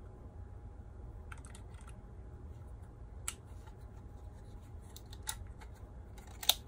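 Small plastic clicks and rattles as an interchangeable plug adapter is worked onto a Spektrum transmitter's wall charger. A sharper, louder snap near the end is the adapter clicking into place.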